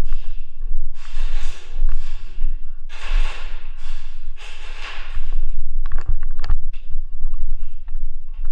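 Heavy breathing close to the microphone: four long, loud, hissy breaths, then a few sharp clicks about six seconds in.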